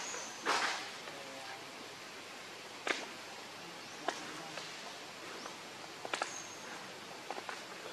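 Quiet outdoor ambience with steady background hiss: two short rustles right at the start, then a few small sharp clicks and ticks spread through, and a brief high thin tone heard twice, near the start and about six seconds in.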